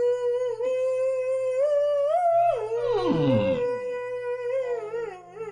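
A voice holding one long note near 500 Hz, wavering slightly. The note climbs briefly just after two seconds and drops back, with a cluster of falling swooping sounds around three seconds.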